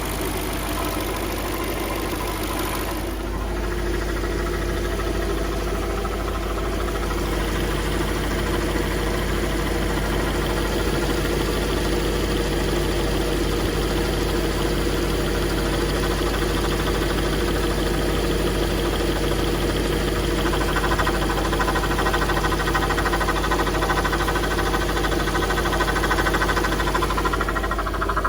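Audi A8 (D3) engine running at idle with a knock, the noise the owner is recording to show. It grows slightly louder toward the end.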